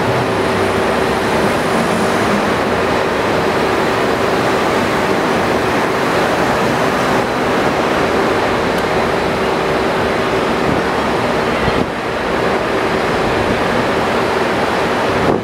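Loud, steady rushing outdoor noise with a constant low hum running underneath, unchanging except for a brief dip near the end.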